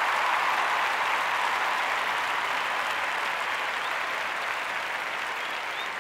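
Audience applauding, slowly dying away.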